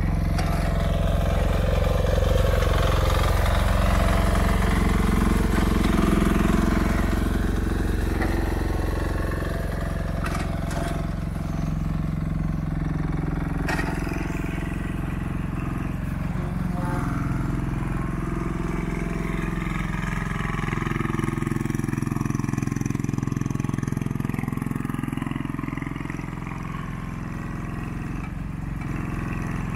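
1-ton TE10B mini excavator's small engine running steadily while the hydraulic boom and arm are worked, its note rising and falling with the load. A few sharp clicks come around the middle.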